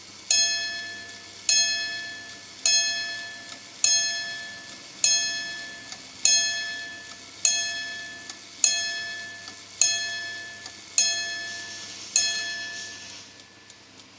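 Wehrle alarm clock striking its bell eleven times, a slow single stroke about every 1.2 seconds, each stroke ringing out and fading before the next.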